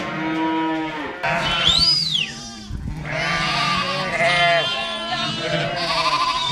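A flock of sheep bleating, several calls overlapping one after another, some long and wavering.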